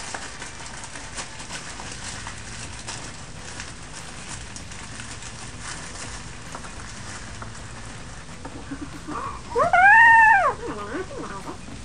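Paper crinkling and rustling as hands crumple and wrap newspaper, then, about ten seconds in, one loud meow lasting about a second that rises and falls in pitch.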